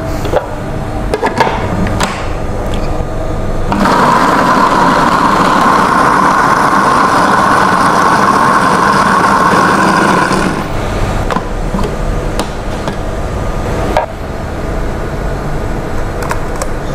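Electric food processor motor running for about six seconds, chopping pineapple flesh and core into a coarse pulp. Clicks and knocks come before and after it as the bowl and lid are handled.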